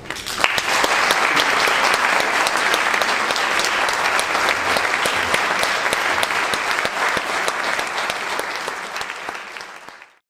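Audience applauding, starting abruptly and fading out near the end.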